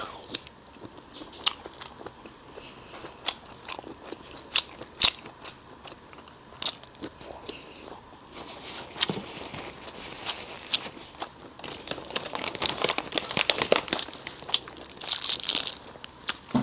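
Close-miked mouth sounds of a person biting and chewing imitation crab stick: scattered wet clicks and smacks, thickening into a denser crackle over the last few seconds.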